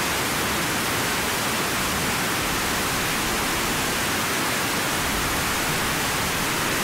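Loud, steady hiss like static, with no pitch or rhythm, cutting off suddenly at the end.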